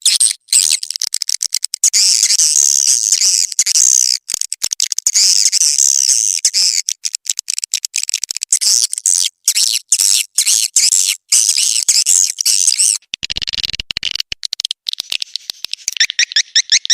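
Swiftlet calling sound (suara panggil walet), the recorded twittering of edible-nest swiftlets used to lure the birds into a swiftlet house: dense, high-pitched chattering chirps, chopped by many abrupt short gaps. Near the end it turns into a fast run of repeated rising chirps.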